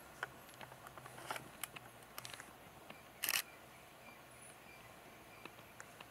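Camera shutter clicking: faint scattered clicks, and a short rapid burst of shutter clicks about three seconds in.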